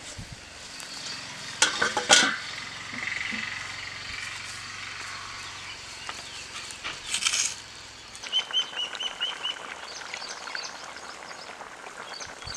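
Open-air cooking ambience: a wood fire crackling under a wok, with birds chirping; about eight seconds in, a bird gives a run of about seven short, high, evenly spaced notes. Two sharp clatters stand out, one about two seconds in and one about seven seconds in.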